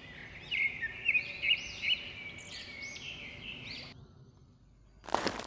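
Bird song: a quick series of arched chirping notes lasting about four seconds, then a short burst of noise near the end.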